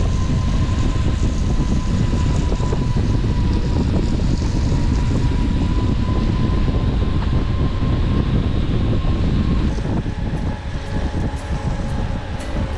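Steady rumble of wind buffeting the microphone and road noise from a moving bicycle, easing slightly about ten seconds in.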